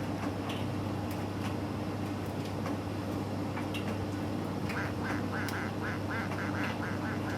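Miele T5205 tumble dryer running with its door open: a steady motor hum, joined about two-thirds through by a fast, even squeaking, about five squeaks a second.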